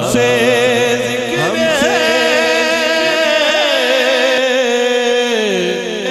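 A man's voice singing a naat, an Urdu devotional poem, a cappella in the chanted style. He draws the word 'humse' out into a long, ornamented melodic line over a steady drone, and the line falls in pitch near the end.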